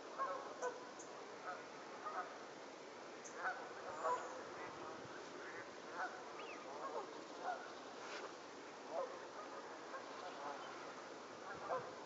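Canada geese honking on and off, a dozen or so short calls scattered through the flock, the loudest about four seconds in.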